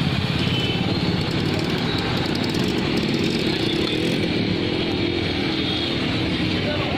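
Street traffic noise from motorcycles and scooters running and passing close by, a steady engine din with no break.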